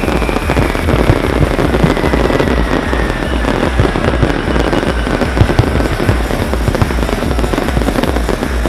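Fireworks going off in dense, rapid bangs and crackles over music. A thin tone slides slowly downward through the first six seconds.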